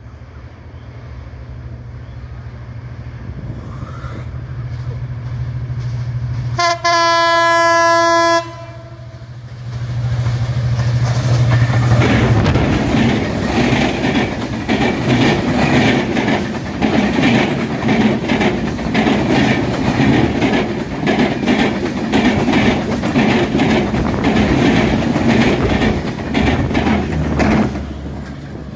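Bangladesh Railway diesel locomotive approaching, its engine drone growing louder, and sounding its horn in one blast of nearly two seconds. Then an intercity passenger train rushes past with a fast, steady clickety-clack of wheels over the rail joints, which drops away near the end.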